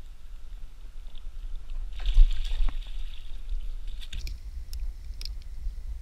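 A carp splashing as it is scooped from the water in a landing net, about two seconds in, followed by a few sharp clicks and knocks of the net and rod against the paddleboard.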